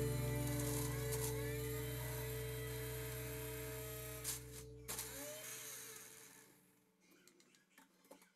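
Background music: a held, many-toned chord that slowly fades out, with a couple of faint clicks about four and five seconds in, dying to near silence near the end.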